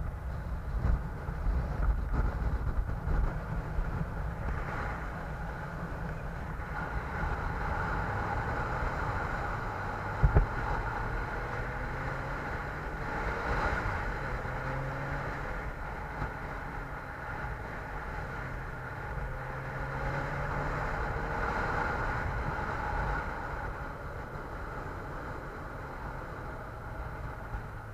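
A motor vehicle under way: engine running with road and wind noise, its pitch rising and falling as speed changes. A short sharp knock about ten seconds in.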